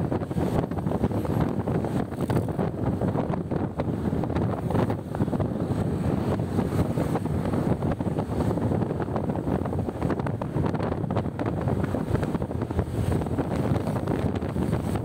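Wind buffeting the microphone of a moving motorcycle: a steady, fluttering rush of noise with the bike's running sound beneath it.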